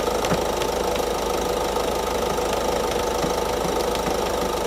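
Ford Focus 1.5 TDCi diesel engine idling steadily, with faint light ticks over the hum.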